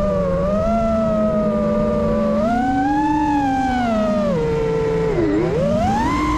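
FPV quadcopter's T-Motor Pro V 2020KV brushless motors and propellers whining, the pitch rising and falling with throttle. The pitch swells, drops low about five seconds in, then climbs sharply as the throttle is punched.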